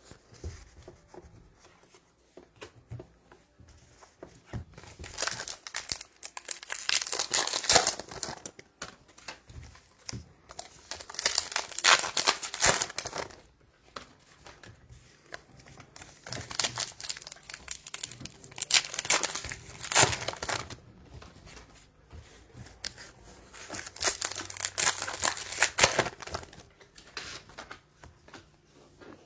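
Foil trading-card pack wrappers being torn open and crumpled, in four bursts of crinkling with quiet handling between them.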